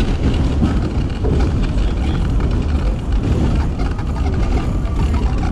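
New York City subway train running at speed, heard from inside the car: a steady rumble of the wheels on the rails and the car's running noise. A faint steady whine comes in during the second half.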